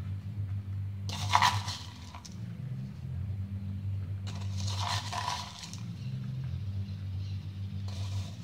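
Ground biscuit crumbs being spread by hand over rolled dough on a metal baking tray: soft rustling and scraping in short bursts about a second in, around five seconds in and near the end, over a steady low hum.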